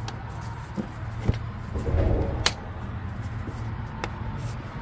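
Plastic air filter box lid being pressed down and its clips snapping shut, giving a few sharp clicks, the loudest about two and a half seconds in, over a steady low hum.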